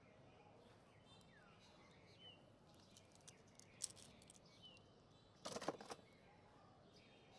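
Quiet outdoor background with a bird chirping every couple of seconds. A few sharp clicks near the middle and a short cluster of clicks and rattling about five and a half seconds in come from gloved hands handling small die-cast toy trucks.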